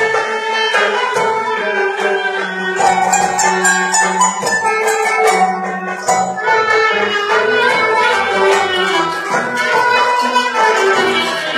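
Turkish art music ensemble playing live: bowed strings, among them violin and cello, carry the melody over a steady percussion beat.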